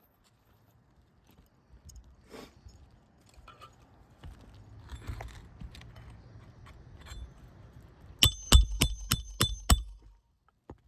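A hammer striking metal about six times in quick succession near the end, each blow ringing sharply, as a roofing nail is driven back into an asphalt shingle. Before the blows there is soft scraping and rustling of shingles being handled.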